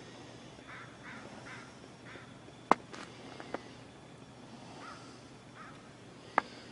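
A crow cawing four times in quick succession, then twice more a few seconds later. Sharp clicks cut through, the loudest about two and a half seconds in and near the end.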